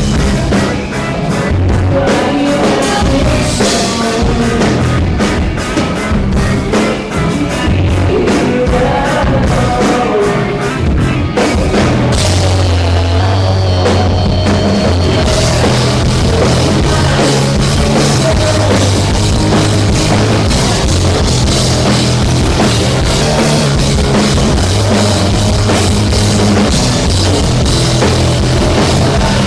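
Rock band playing loud through a PA at a sound check, with a drum kit driving a steady beat. The cymbals drop away for a few seconds about twelve seconds in, then the full band comes back in.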